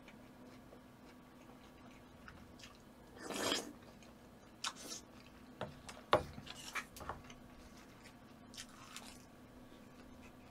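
Close-miked eating of a spoonful of sticky rice with kimchi stew, pork and tofu: a short noisy burst about three seconds in, then a run of sharp clicks and chewing sounds through the middle, and another short noisy burst near the end. A faint steady hum lies underneath.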